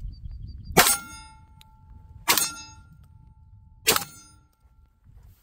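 Three shots from a Beretta 1301 Tactical 12-gauge semi-automatic shotgun, about a second and a half apart, each followed by a ringing clang that fades over a second or so, the sound of a steel target being hit.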